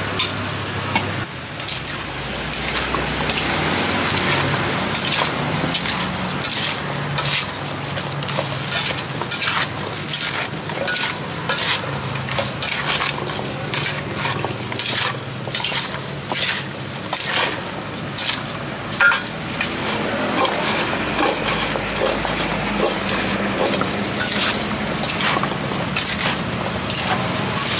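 Cut fruit being tossed and mixed in a stainless steel bowl by a plastic-gloved hand: a run of irregular clatters, squelches and rustles of fruit, seasoning and plastic glove against the metal. A low steady hum lies underneath.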